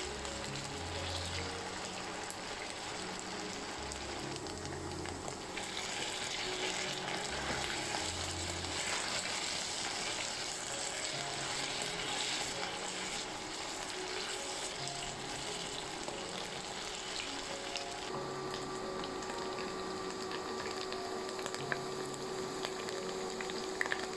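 Food sizzling in hot oil in a pan, a steady frying hiss that grows louder for several seconds in the middle, with soft background music underneath.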